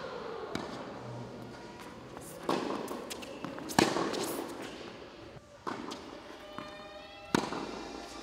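Tennis ball struck back and forth with racquets in a baseline rally, five sharp hits about one and a half to two seconds apart, the loudest about four seconds in. Each hit echoes in the large indoor court hall.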